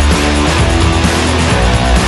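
Loud rock music, dense and unbroken.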